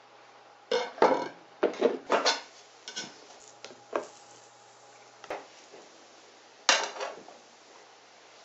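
Kitchen knife and plastic cutting board knocking and clattering as they are handled: a string of sharp knocks in irregular groups, the loudest about a second in and again near seven seconds in.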